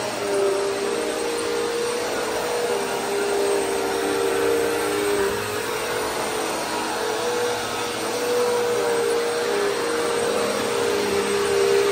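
Bagless upright vacuum cleaner running steadily as it is pushed back and forth over low-pile carpet, its motor note shifting slightly in pitch under the airflow hiss.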